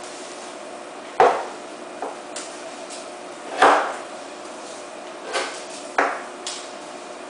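Kitchen knife chopping onion on a wooden cutting board: about seven uneven knocks of the blade on the board, the loudest about a second in and halfway through, over a faint steady hum.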